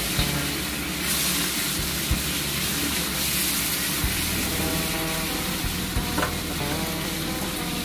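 Quail sizzling in hot garlic oil in a steel wok as they are quick-fried to brown, with a few sharp knocks of a utensil against the wok as they are stirred.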